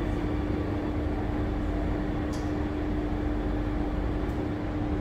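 Steady interior noise of an SMRT C830C metro train: an even rumble with a constant hum, and a light click a little after two seconds in.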